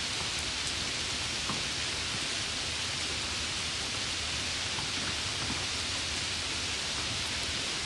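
Steady rain falling: an even, continuous hiss with a few single drops ticking out now and then.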